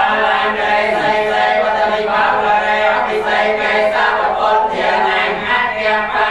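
A group of voices chanting Buddhist Pali verses together in unison, a steady, continuous recitation on a held drone-like pitch.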